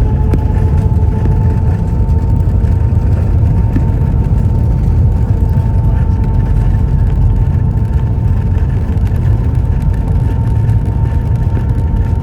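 Airbus A320 jet engines and airflow heard from inside the cabin: a loud, steady rumble with a thin, steady whine on top.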